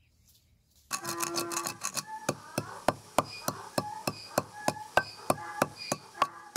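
A quick clatter starts about a second in, then settles into steady strikes about three a second, each with a short metallic ring.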